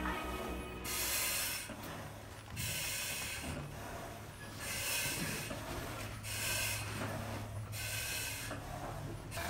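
Firefighter breathing through an SCBA mask and regulator: about six hissing breaths, roughly one every second and a half, over a low steady hum.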